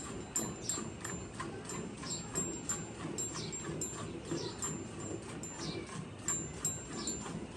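Small birds chirping: a rapid, regular run of short, high downward chirps, about three a second.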